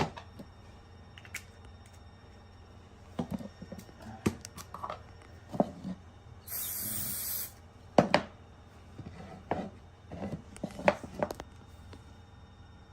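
Scattered knocks and taps from laminate flooring boards being handled and fitted, with the sharpest knock about eight seconds in. Near the middle comes a steady hiss lasting about a second.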